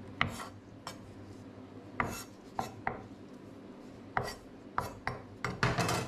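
Kitchen knife chopping green onions on a bamboo cutting board: about ten separate knocks of the blade on the wood, unevenly spaced, with a quicker run of strokes near the end.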